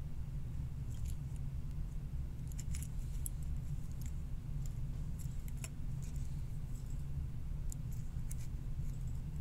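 Faint, scattered clicks and scrapes of resistor wire leads being pushed through a printed circuit board and bent back by hand, over a steady low hum.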